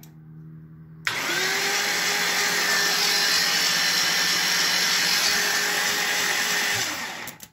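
Starter motor cranking the BMW M62 V8 over at about 190 rpm without it firing. It is a steady whine that comes in suddenly about a second in, rises as it spins up, and drops away near the end.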